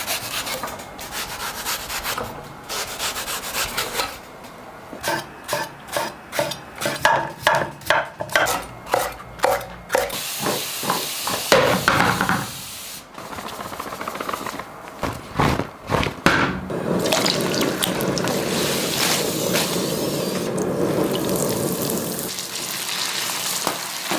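A knife cutting eggplant on a wooden chopping board, about two even strokes a second, then a short hiss from a spray bottle misting water over the pieces. From about two-thirds of the way in, hot oil bubbles and sizzles steadily as the eggplant deep-fries.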